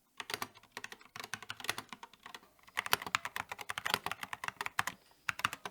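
Fast typing on an Epomaker Skyloong GK87S mechanical keyboard whose PCB back is lined with three layers of painter's tape, a dampening mod meant to give a deeper "thock". The keystrokes come in quick runs broken by short pauses, and to the typist they sound a lot deeper.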